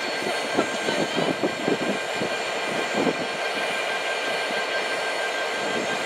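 A freight train of hopper wagons rolling past close by, its wheels and couplings clanking and knocking over the rails, with most of the knocks in the first couple of seconds.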